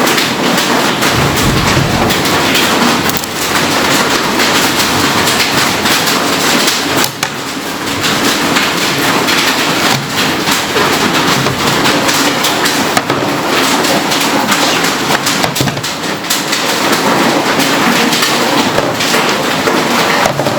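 Loud, dense crackling and rustling noise with many small clicks, steady with only brief dips.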